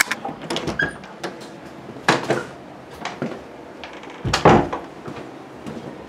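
Doors being opened and shut, with knocks and rustling handling noise; the loudest thump comes about four and a half seconds in.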